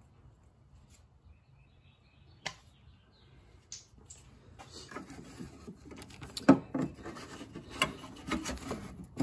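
A single click, then from about four seconds in, plastic rubbing and scraping with several sharp knocks as a new diesel fuel filter is pushed by hand down into its housing.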